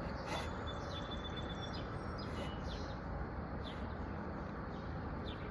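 Small birds chirping faintly, a few short high whistled notes and quick falling chirps scattered throughout, over a steady background hiss of outdoor noise.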